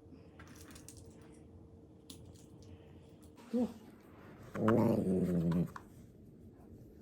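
A 13-year-old dog vocalizing: a short call that rises and falls about three and a half seconds in, then a louder, drawn-out call lasting about a second.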